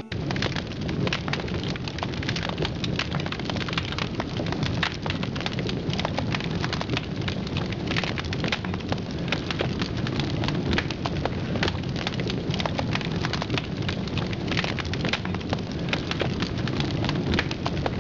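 Dense, steady crackling and hiss over a low rumble, without pauses.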